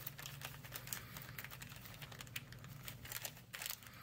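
Clear plastic parts bag crinkling and rustling in a run of small, faint crackles and ticks as tweezers pick through it for diodes.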